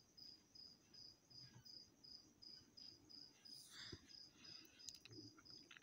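Faint cricket chirping steadily, about three short chirps a second, with a faint knock about four seconds in.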